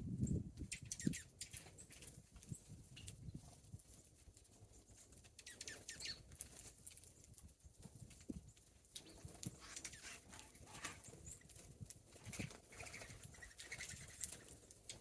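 Small birds feeding on the snow: wings fluttering as they come and go, with faint scattered chirps and ticks. The flutter is loudest right at the start.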